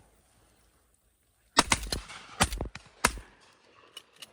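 Shotguns firing at doves: three or four loud shots in quick succession, starting about one and a half seconds in, each dying away briefly.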